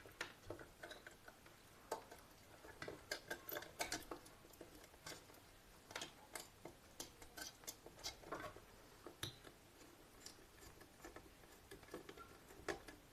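Faint scattered clicks and taps of a screwdriver and wire at the terminals of a 16 A power plug board as a wire is fastened into a terminal.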